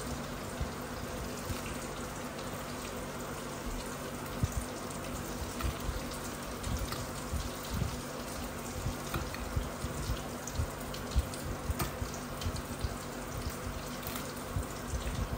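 Bread rolls deep-frying in hot sunflower oil: a steady sizzle with scattered crackles and pops, over a low steady hum.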